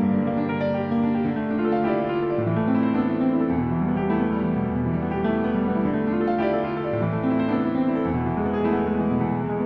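Background music led by piano, with sustained chords changing every second or two.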